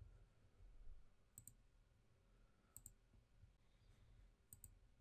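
Computer mouse button clicked three times, each click a quick double tick, faint against near-silent room tone.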